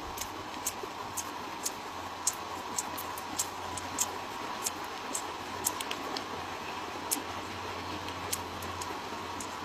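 Kittens licking each other's fur, with short, irregular wet tongue clicks over a steady background hum.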